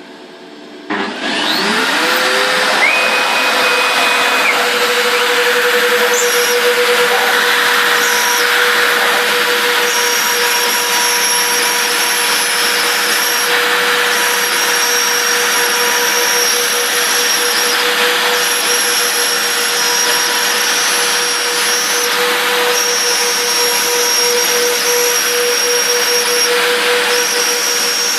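Twin CNC router spindles spinning up about a second in to around 30,000 rpm, then running at a steady high whine over a noisy hiss as a 1.5 mm bit mills through plywood. Higher-pitched tones cut in and out every few seconds.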